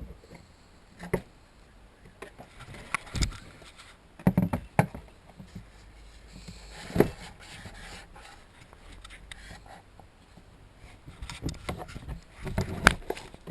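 Scattered knocks, clunks and scraping as car interior panels and parts are handled and moved, with a few sharper knocks.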